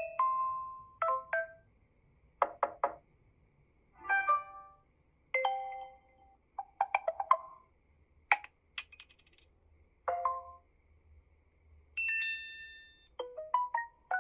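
Samsung Galaxy A5 (2016) playing its built-in notification sounds one after another: about ten short chimes and jingles, each under a second, with brief pauses between them.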